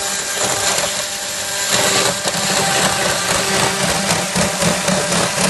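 Motor-driven power tool running steadily, getting louder and rougher about two seconds in as it starts working, likely cutting wood.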